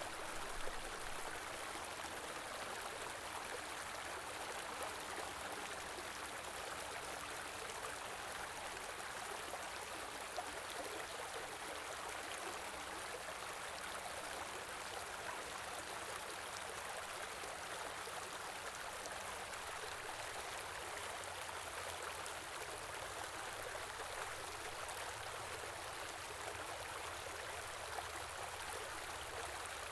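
A small river or stream flowing, a steady rush of running water with no change in strength.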